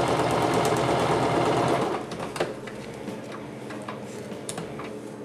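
Electric sewing machine stitching a hem in nylon fabric with a fast steady run, stopping about two seconds in. A few light clicks follow as the machine is handled.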